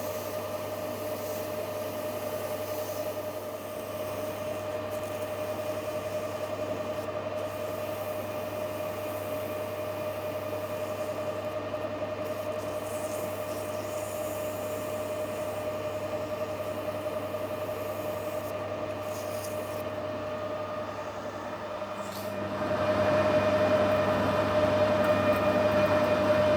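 Metal lathe running with a steady whine, a strip of emery tape rubbing against the spinning workpiece. About 22 seconds in the machine noise gets louder.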